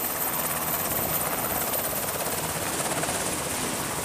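Navy Seahawk helicopter hovering with a cargo sling load: steady rotor and turbine noise with a fast, even rotor beat.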